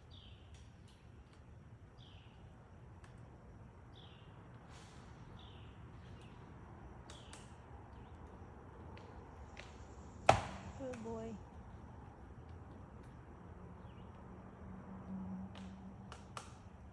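A series of short, high, downward-sliding chirps, roughly one a second, from the strange noise-maker in the woods, with scattered faint clicks. A single sharp loud click about ten seconds in is followed by a few falling tones.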